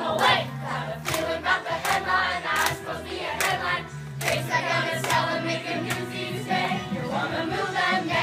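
A cast of young performers singing a Broadway ensemble number together over musical accompaniment, with a sharp beat about every 0.8 seconds.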